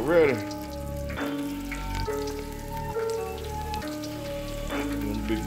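Flour-coated chicken pieces deep-frying in oil in an electric deep fryer, a steady sizzle with fine crackling. Background music with held notes plays over it.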